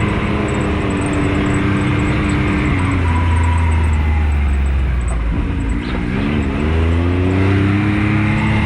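Can-Am Maverick X3 side-by-side's engine running under way. Its pitch drops about three seconds in, wavers up and down briefly around six seconds, then climbs again.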